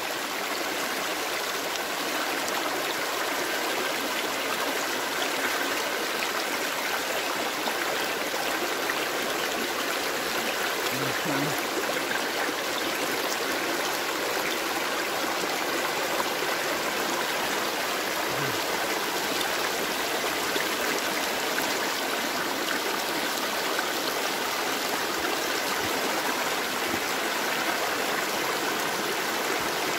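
Fast-flowing stream rushing and splashing over rocks, a steady rush of white water.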